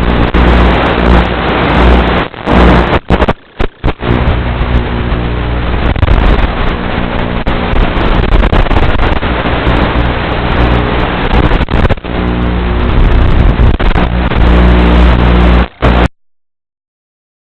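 Strong wind buffeting the microphone, a loud rushing rumble with short dropouts about three to four seconds in; it cuts off suddenly at about sixteen seconds.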